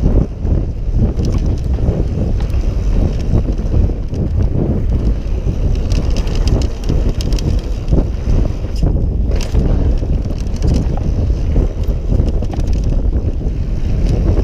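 Yeti SB6 mountain bike rolling down a dirt trail: a steady rumble of tyres on dirt and wind buffeting the microphone, with frequent sharp clicks and rattles from the bike.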